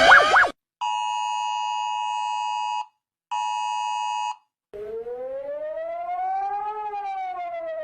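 Played-back emergency alert sounds. A fast warbling alarm cuts off, then the EAS two-tone attention signal sounds twice, about two seconds and then about one. A slow siren wail follows, rising for about two seconds and then falling.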